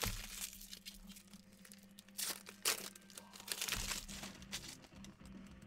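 Optic basketball trading cards being handled and squared into a stack on a card mat: a run of brief rustles and clicks, busiest a little past the middle.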